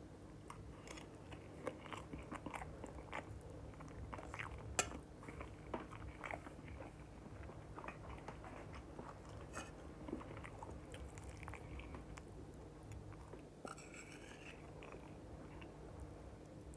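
Close-up chewing and biting of a mouthful of rice and roasted fish, with many small wet clicks and crackles and one sharper click about five seconds in, over a steady low hum.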